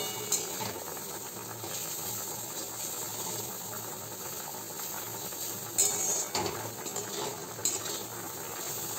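Spiced gravy with gram-flour fritters and potatoes boiling hard in a kadai: a steady bubbling and light sizzle, with a few short louder noises around six and eight seconds in.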